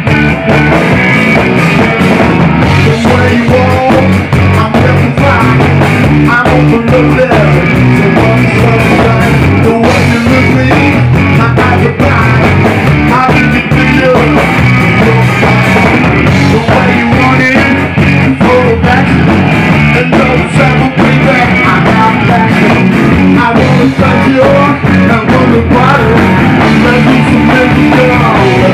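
Loud rock music from a band, playing steadily without a break.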